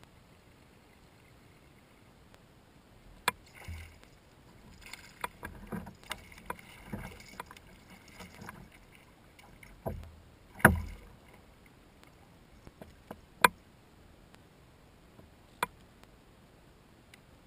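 Hooked bass thrashing and splashing at the surface beside a kayak, a run of splashes lasting several seconds, then two heavy thumps, the loudest about ten and a half seconds in, and a couple of single sharp clicks near the end.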